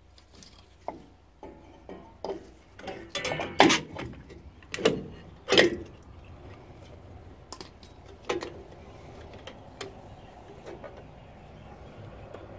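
Metal clicks and clanks of a Ford Courier's rear drum brake parts, shoes, return springs and handbrake lever, being unhooked and handled with pliers. A cluster of sharper clanks comes about three to six seconds in, then lighter scattered ticks.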